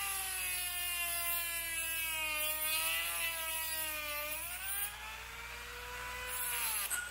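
Handheld rotary tool with a cutoff disc whining at high speed as it cuts into the brass hub of a badly stuck water-pump impeller on an outboard drive shaft. The pitch sags as the disc bites, dips harder about four seconds in, and falls away sharply near the end.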